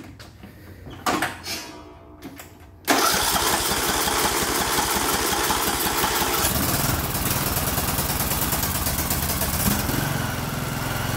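Briggs & Stratton 19.5 hp single-cylinder lawn tractor engine, its new aftermarket carburetor still dry, cranked on the electric starter after a few clicks about three seconds in. It catches a few seconds later and runs with the choke left on.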